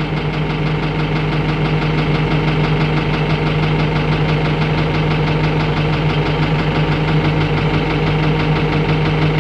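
Tractor engine running steadily, a constant droning hum with a fast, even pulse, swelling slightly in the first second and then holding level.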